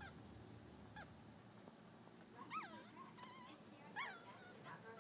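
Four-day-old Yorkshire terrier puppies squeaking: short high-pitched cries that rise and fall in pitch, a faint one about a second in, then two louder ones near the middle, with smaller wavering squeaks between.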